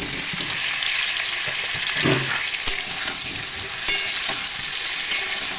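Cauliflower florets and potato pieces sizzling in hot oil in a metal kadai, stirred and turned over, with a couple of sharp knocks against the pan.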